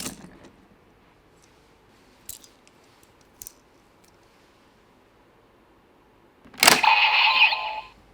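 A few light plastic clicks from handling the toy, then, about six and a half seconds in, the DX Wizard Driver toy belt's speaker plays a loud electronic transformation sound effect for about a second and a half.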